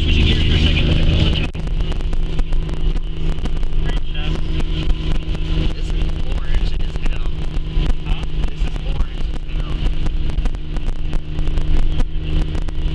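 Inside a car driving through a storm: a steady engine and road drone, with wind and rain battering the vehicle. A heavy low rumble drops away about a second and a half in.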